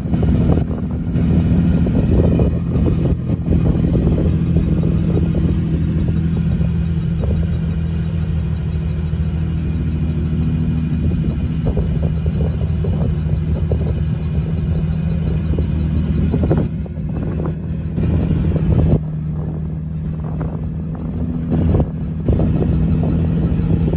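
Toyota Tacoma pickup's engine running at steady revs under load while its tires spin and dig into soft sand, with a low rumble throughout.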